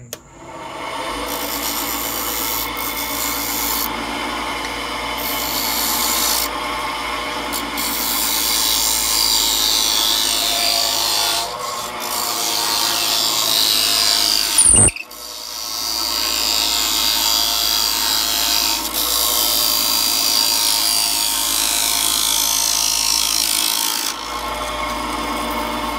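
Wood lathe turning a wooden spinning-wheel bobbin while a hand-held turning tool cuts its end flange: a continuous scraping hiss of the cut over the steady hum of the lathe. Partway through a single sharp knock briefly interrupts the cutting, which then carries on.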